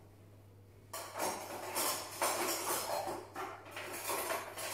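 Kitchen utensils scraping and clinking against cookware in irregular strokes, starting about a second in.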